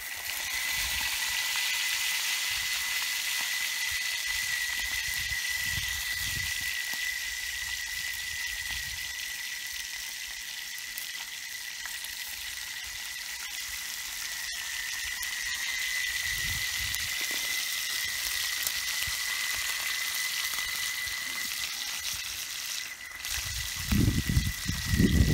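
Fish frying in oil in a pan over a wood fire: a steady sizzle, with a thin steady high tone alongside. Near the end, low thumps and rumble come in and are the loudest sounds.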